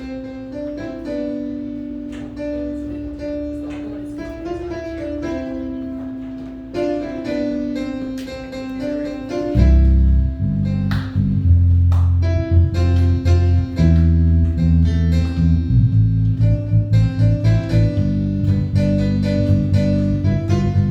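Instrumental worship music from a church band: keyboard and guitar playing sustained chords, joined by a strong bass line about halfway through.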